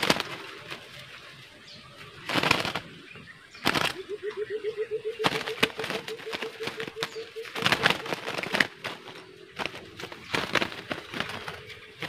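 White-eared brown doves flapping inside a wire trap cage, their wings beating against the wire in several short bursts. From about four seconds in comes a low, rapidly repeated dove call lasting three to four seconds.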